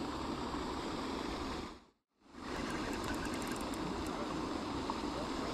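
Steady wind rushing on the microphone, a low rumble with hiss. It cuts out to silence for a moment about two seconds in, then returns.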